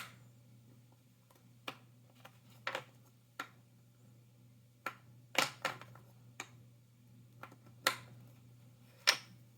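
Jigsaw puzzle pieces being picked up and set down, an irregular series of light clicks and taps over a faint steady hum.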